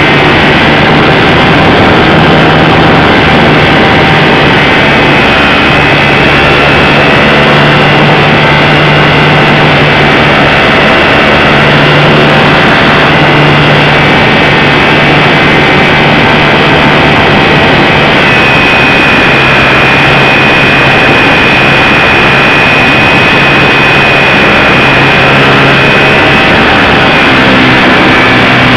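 Electric motor and propeller of a radio-controlled Super Cub model plane in flight, heard from the onboard camera: a steady whine with a low drone under heavy wind rush, loud and distorted. The pitch shifts a few times as the throttle changes, with a high whine coming up more strongly about two-thirds of the way through.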